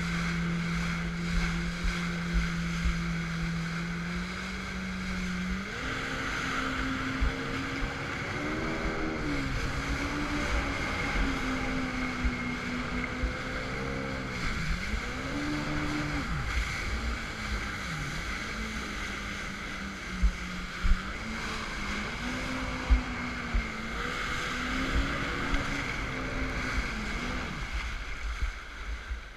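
2005 Yamaha FX Cruiser High Output jet ski's four-stroke engine running under way, with rushing water and spray. Its pitch holds steady, jumps higher about six seconds in, then rises and falls repeatedly as the throttle is worked, and drops away near the end. A few sharp thumps stand out past the middle.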